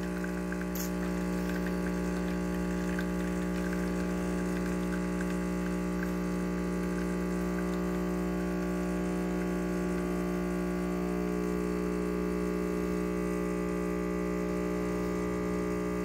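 De'Longhi bean-to-cup coffee machine's pump humming steadily while it brews, pushing hot water through the ground coffee as coffee runs from the twin spouts into the cup.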